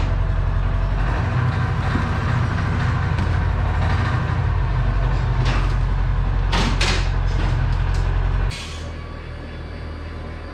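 The John Deere Gator TS's single-cylinder air-cooled engine running under throttle as the vehicle climbs its front wheels onto ramps, with a few knocks along the way. About eight and a half seconds in it drops suddenly to a quieter steady idle.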